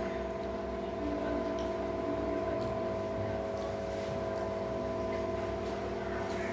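Steady electric motor hum, several held tones over a low rumble, unchanging throughout.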